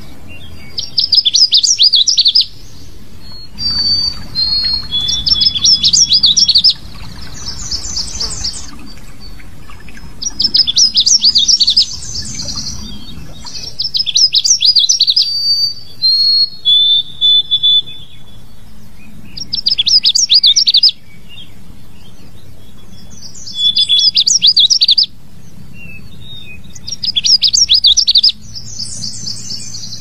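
Canada warbler singing: a rapid, jumbled burst of high notes lasting about two seconds, repeated about seven times with pauses of a few seconds between songs, and short single high notes in the gaps.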